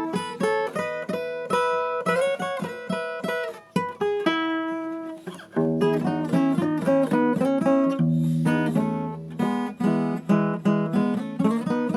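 Acoustic guitar playing an instrumental break between sung verses: a run of picked notes and chords, with a short dip a little before halfway and held low notes from about halfway on.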